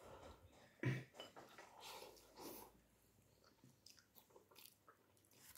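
Faint eating sounds: ramen noodles being slurped and chewed. There is a short thump about a second in.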